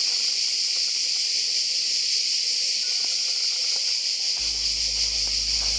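Loud, steady, high-pitched chorus of cicadas. Background music comes in about four seconds in.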